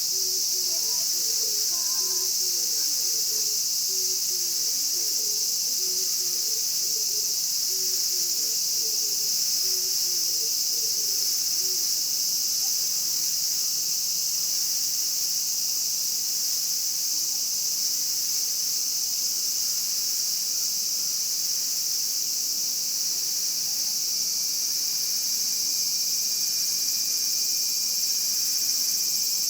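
Chorus of Japanese cicadas droning steadily in one high, unbroken sizzle. Fainter lower-pitched chirps sound underneath during the first dozen seconds or so.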